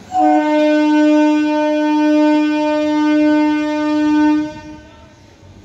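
Electric multiple unit train's horn sounding one long, steady blast of about four seconds, then fading out.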